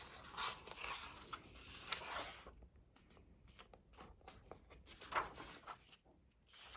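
Pages of a glue-bound paperback colouring book being turned and smoothed flat by hand: soft paper rustling, busiest over the first two and a half seconds, with another brief rustle about five seconds in.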